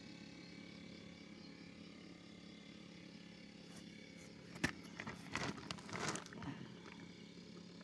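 Handling noise: a sharp click, then about two seconds of rustling and crackling, over a faint steady low hum.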